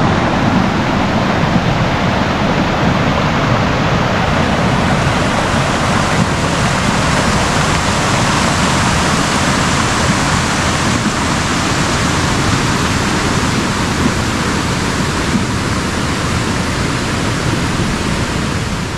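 Swift river water rushing, one steady unbroken noise.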